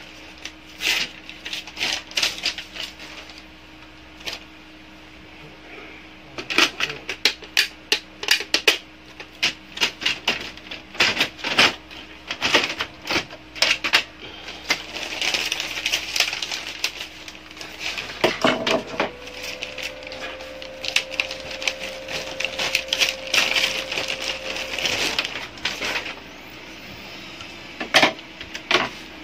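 Plastic clicks, taps and rattles from the parts of a Brother laser printer being handled and fitted, over a steady hum. The hum steps up to a higher steady tone for about six seconds near the middle, then drops back.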